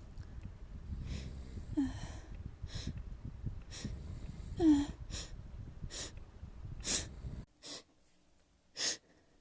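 A person's sharp sniffs and catching, hitching breaths as a sneeze builds from a tickle in the nose, about ten in all. Two of them are voiced, falling 'ah' gasps, and the loudest come about halfway through and about two-thirds through.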